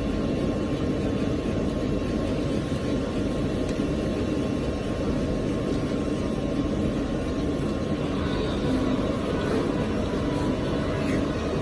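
CNC die-cutting plotter running a cutting job: a steady mechanical drone with a faint constant whine.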